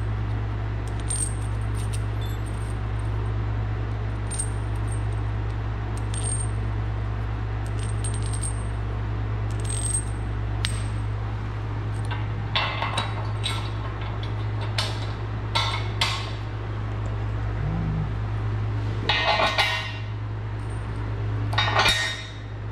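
Zinc-plated steel washers, lock washers and nuts clinking and jingling as they are picked from loose piles on a concrete floor and fitted onto bolts through a steel shop-press frame. Light single clinks in the first half, then several short busier rattles of hardware in the second half, over a steady low hum.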